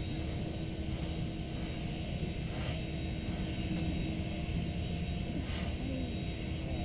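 Union Pacific 844, a 4-8-4 Northern steam locomotive, rumbling steadily as it works slowly along the track, with a steady hum and two brief hisses, about 2.5 s in and near 5.5 s.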